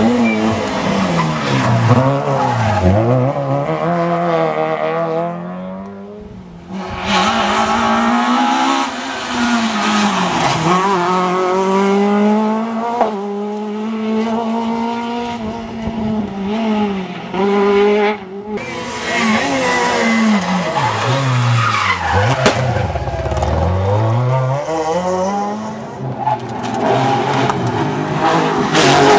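Rally cars at full throttle passing one after another on a tarmac stage. Their engine notes climb through the gears and drop steeply as each car goes by and brakes, with some tyre squeal. The sound breaks off abruptly twice, about six and eighteen seconds in, as one car gives way to the next.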